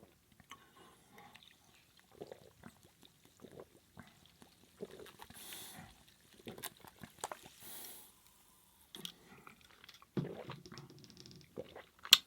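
Close-miked eating sounds: quiet chewing, lip smacks and mouth clicks, with a few short breathy bursts and a sharp click near the end.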